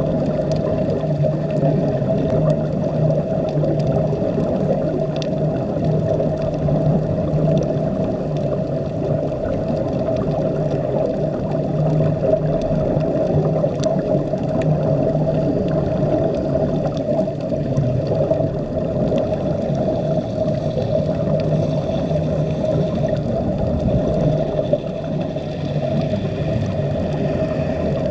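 Steady underwater drone: a constant low hum and a higher hum over a wash of water noise, heard by a camera submerged on a reef.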